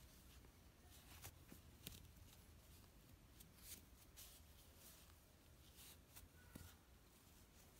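Near silence, with faint, irregular soft ticks and rustles from a metal crochet hook and yarn as stitches are worked, over a low room hum.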